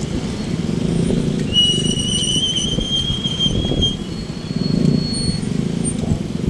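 Street traffic rumbling steadily, with a high-pitched squeal, slightly rising, lasting about two seconds in the middle, like a brake squealing.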